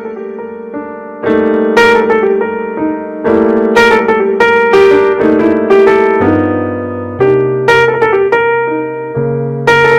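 Background music: piano playing a slow sequence of chords, a new chord struck about every second.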